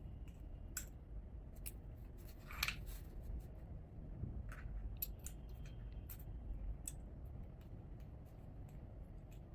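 Small lightsaber hilt parts being handled during disassembly: scattered light clicks and short scrapes, with one louder scrape about two and a half seconds in.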